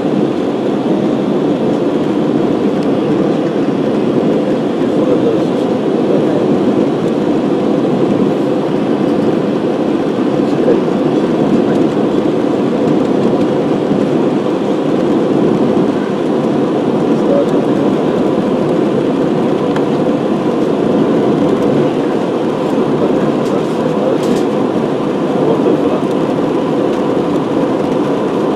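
Airliner cabin noise in flight: the jet engines and rushing airflow heard from a window seat as a loud, steady, even rumble with a faint constant hum above it.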